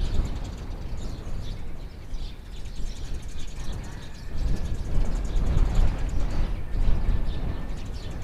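Outdoor village ambience: small birds chirping over a steady low rumble.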